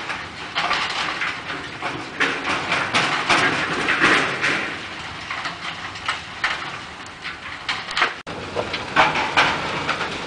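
Coal washing plant running: an irregular clatter and rattle of coal tumbling down a steel chute and off conveyors onto a stockpile, over a steady machinery din. The sound cuts out for an instant about eight seconds in.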